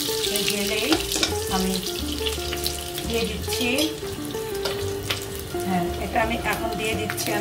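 Cinnamon sticks and cardamom pods sizzling in hot ghee in a stone-coated wok, with a few sharp clicks of a spatula against the pan. Background music plays along.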